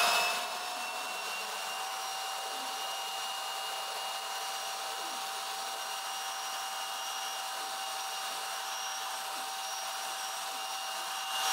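Handheld leaf blower running steadily, a constant high whine over the rush of air, blowing water across a windshield.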